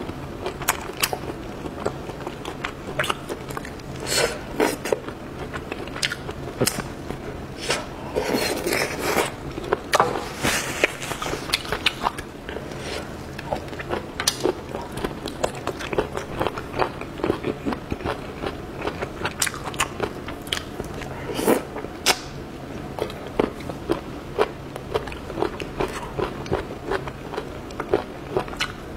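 Close-miked eating sounds: a person chewing seafood, with many irregular wet mouth clicks, smacks and soft crunches.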